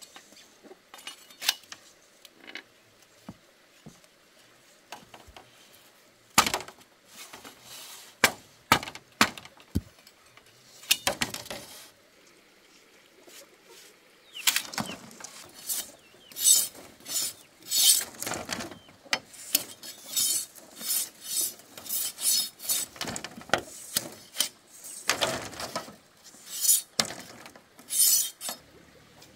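Machete blade working split bamboo slats: a string of sharp chopping knocks, then from about halfway a long run of rhythmic scraping strokes as the blade shaves along the slats.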